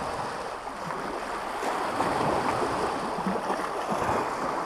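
Small waves washing and splashing against shoreline rocks, a steady rushing noise.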